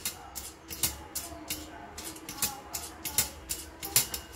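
Sharp, irregular clicks and rattles from the metal chassis, swing arms and oil-filled shock absorbers of a homemade RC truck's suspension as it is pressed down and let back up by hand. The loudest clicks come a little under a second in and again about four seconds in.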